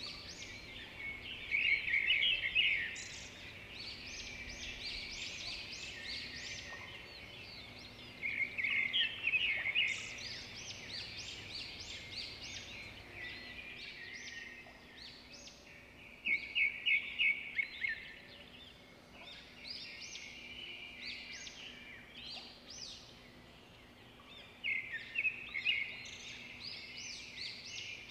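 Birds chirping and singing, with a loud, rapid trilling phrase that comes four times, about every eight seconds, over constant chirping.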